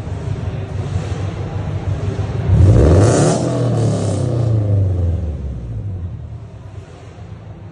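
Honda car engine idling through its exhaust, then revved once about two and a half seconds in, the pitch climbing sharply and then falling back to idle over the next three seconds.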